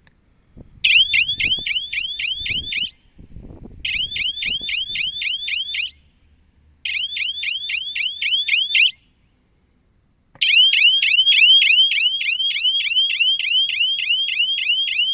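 Electronic siren of a battery-powered game signal column for paintball and airsoft, sounding a fast repeating chirp of about five a second in four blasts: three of about two seconds with short gaps, then a longer one of about five seconds. It is the alarm that marks the start and end of a game.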